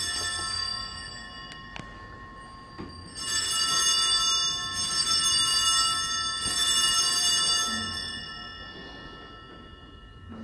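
Hand-rung altar bells at Mass, a cluster of small bells giving a bright, high, sustained ringing. One ring at the start is followed by three louder rings in a row, about a second and a half apart, before the sound fades.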